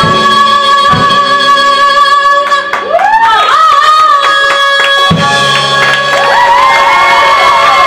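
A woman singer holds one long, high belted note over piano, upright bass and drums, the big closing note of a show tune; the band sounds a fresh chord about five seconds in beneath it.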